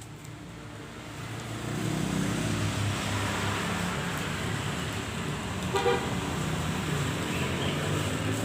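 Road traffic going by, with vehicle engine noise growing louder about two seconds in, and a short vehicle horn toot a little past the middle.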